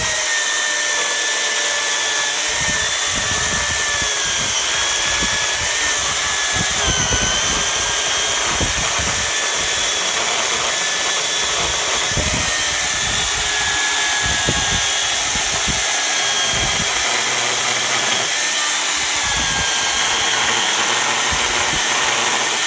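Makita UC4051A corded electric chainsaw cutting through a frozen birch log with the full length of its bar. Its motor and chain give a steady high whine that sags slightly in pitch now and then as the chain bites into the wood.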